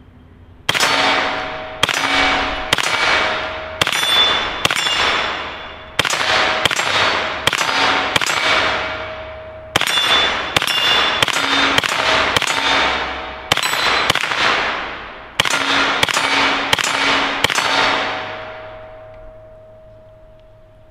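IWI Tavor rifle with a 9mm conversion kit firing about two dozen single shots in quick strings, one to two a second. Each shot is followed by a long echo that fades into the next. The firing stops about three seconds before the end, and the last echo dies away.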